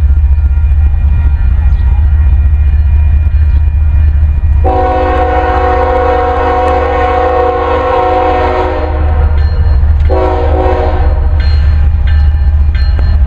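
Diesel locomotive air horn on a Union Pacific GE ET44AC (AC45CCTE) sounding a chord in a long blast of about four seconds, then a shorter blast about a second later, over the steady low rumble of the passing train.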